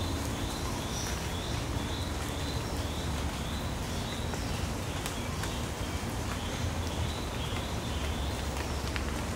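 Forest ambience: short high chirps repeating about twice a second over a steady low rumble.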